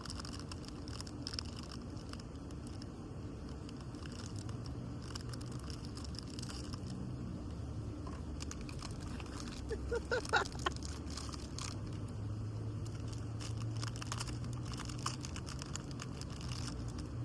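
People chewing and biting into food, with small clicks and crinkles from handling the food and its packaging, over a steady low hum. A brief pitched sound stands out about ten seconds in.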